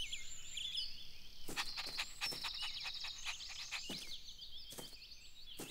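Small birds chirping and tweeting, many short high calls overlapping, with a run of quick ticks between about one and a half and three and a half seconds in.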